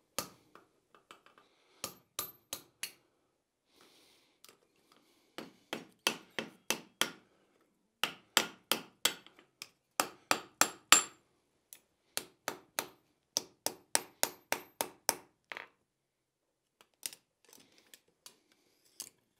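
Hand hammer striking a hot steel hinge blank on an anvil, working the rolled eye of an H & L hinge closed around a supporting pin. A few light taps come first, then quick runs of sharper blows, some with a bright metallic ring, then a short pause and a few more strikes near the end.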